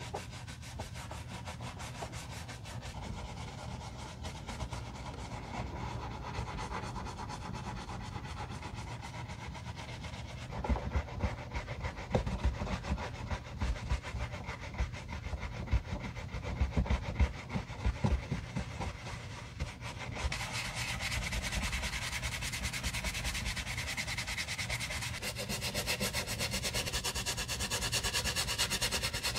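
A bristle shoe brush scrubbing a sneaker in rapid back-and-forth strokes, first inside on the fabric insole and lining. From about ten to twenty seconds in, irregular louder knocks come through the scrubbing. About two-thirds of the way through the sound turns brighter and hissier as the brush works the wet, foamy rubber sole.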